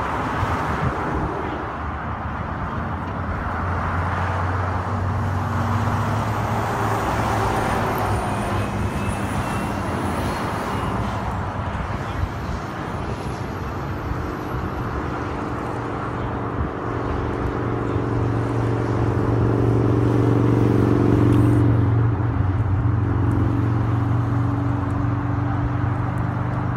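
Steady highway traffic noise with the low hum of a running vehicle engine, swelling louder about two-thirds of the way through and easing off near the end.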